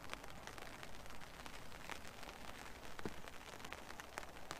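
Rain falling on a fishing brolly's fabric canopy: a faint steady hiss with scattered single drops tapping on the fabric.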